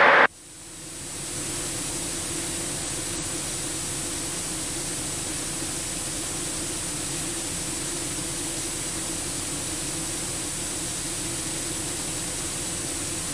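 Steady hiss on the Cessna Caravan's cockpit intercom and radio audio, with a faint low steady hum from the aircraft under it. After the radio call ends it dips, then builds back to a steady level within about the first second.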